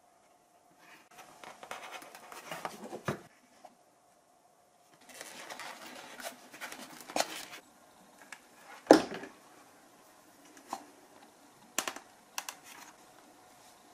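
Foam parts being handled and pressed by hand into a foam model-aircraft fuselage: scratchy rubbing of foam on foam in two stretches, a sharp knock about nine seconds in, then a few light clicks.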